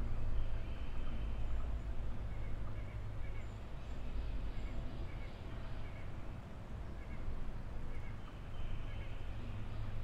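Faint, short bird chirps now and then over a steady low rumble, with a brief higher twittering about a second in and again near the end.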